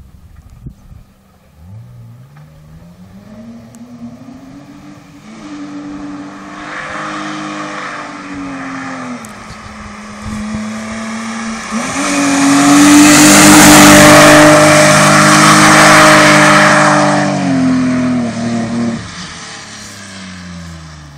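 A BMW E30's engine pulling hard as the car approaches up a winding road: the revs climb, drop briefly, then climb again as it passes close and loud about two-thirds of the way in. The engine note then falls and fades as the car drives away.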